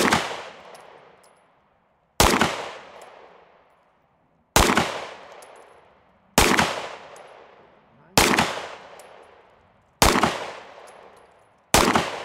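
A 9mm pistol fired in slow, single aimed shots about two seconds apart, each shot followed by a long, fading echo. The unhurried pace is the shooter timing each trigger press for when the red dot settles on a small target.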